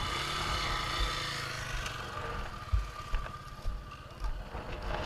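Dirt bike engine running at a fairly steady pitch, fading out over about three seconds, with scattered low thumps.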